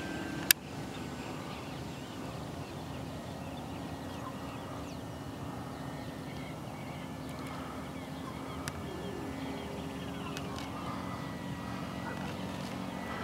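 Electric motor and propeller of a Mirax 40 RC plane (NTM Propdrive 50/50 570KV motor, APC 11x5.5 prop) in flight: a steady drone with a thin high whine that dips in pitch and climbs back near the end. A single sharp click about half a second in.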